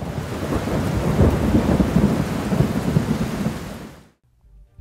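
Thunderstorm sound effect: thunder rumbling over steady rain, starting suddenly and fading away about four seconds in.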